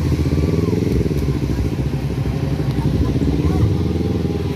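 Vehicle engines running close by, a steady low drone that rises and falls a little in pitch, with voices in the background.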